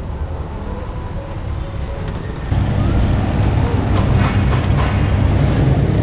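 Street traffic: motor vehicle engines rumbling past, growing louder about two and a half seconds in.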